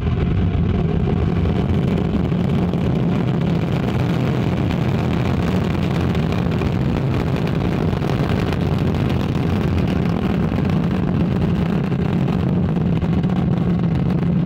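Ariane 5 rocket at liftoff, its Vulcain main engine and two solid rocket boosters just ignited, giving a loud, steady roar.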